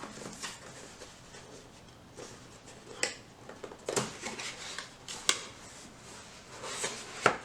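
Product packaging being opened and handled by hand: faint rustling with a few sharp clicks and taps, over the low steady hum of a desktop PC.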